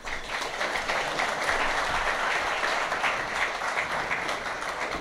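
Audience applauding, a dense, steady patter of many hands clapping that cuts in abruptly at the start.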